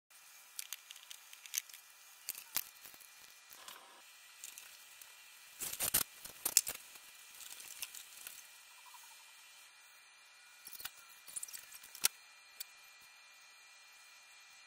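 Faint steady hiss of room tone with scattered small clicks and knocks, the loudest a quick cluster about six seconds in and a single sharp click about twelve seconds in.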